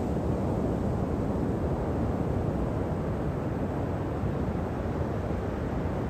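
Pacific Ocean surf breaking and washing up a sandy beach: a steady, low rush of wave noise with no single crash standing out.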